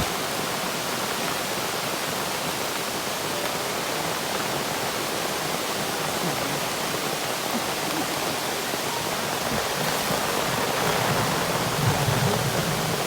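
Heavy rain pouring steadily in strong wind, an even, dense hiss that swells slightly near the end.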